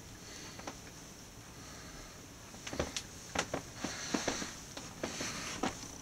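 Faint steady room hiss, then from about three seconds in a run of irregular knocks, clicks and rustling as a person moves about and handles things close to the microphone.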